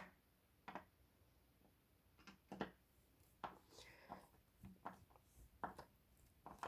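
Faint, irregular clicks and scrapes of a screw being tightened by hand through the desk frame into a threaded metal insert in the wooden top.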